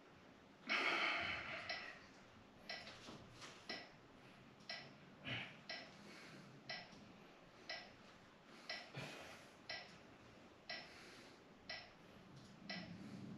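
A short, even tick about once a second, like a clock, running steadily. About a second in comes a loud breathy exhale, with a few softer breaths later, from people holding a front-split stretch.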